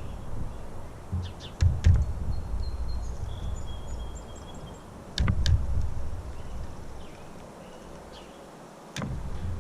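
Outdoor ambience at a bird feeder: gusts of low rumble on the microphone, a few sharp clicks about two and five seconds in and near the end, and faint high bird chirps in the background.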